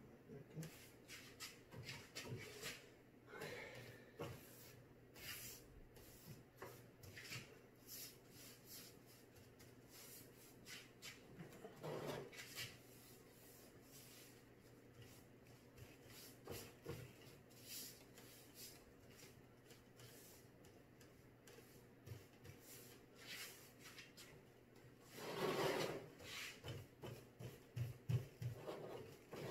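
Paintbrush drawn over a painted wooden cabinet door, laying on clear coat: faint brushing and rubbing with small taps and clicks over a faint steady hum, and one louder, longer rub near the end.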